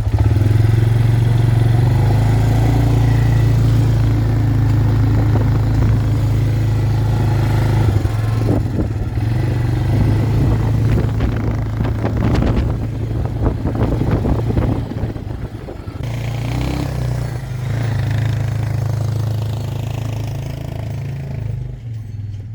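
Arctic Cat four-wheeler's engine running steadily while riding and towing a small boat, with rattling through the middle stretch. The engine gets quieter about sixteen seconds in.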